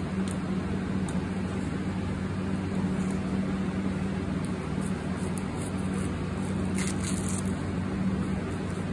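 A steady low machine hum throughout, with a few faint crisp strokes of a chef's knife slicing through an onion on a wooden cutting board.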